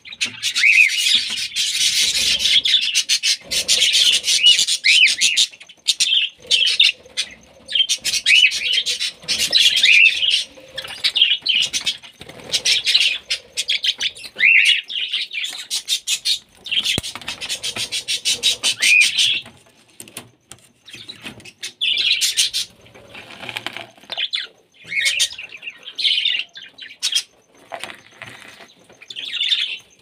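Budgerigars chattering: runs of rapid high chirps and short gliding calls lasting a few seconds each, with brief pauses between them.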